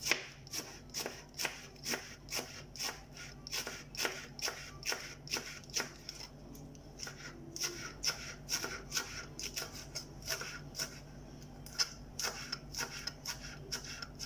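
Kitchen knife slicing cabbage into thin strips on a cutting board: steady crisp cuts, about two to three a second, with a brief pause about six seconds in.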